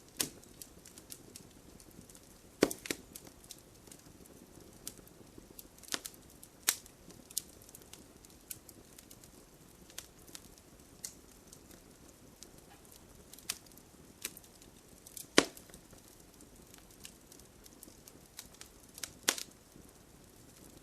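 Wood fire crackling: irregular sharp pops and snaps from the burning logs over a low steady hiss, with a few louder cracks.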